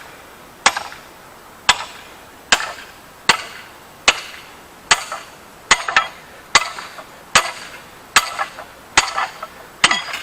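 Hammer blows on the steel of a rusty forged post vise, about a dozen evenly paced strikes a little faster than one a second, each with a short metallic ring.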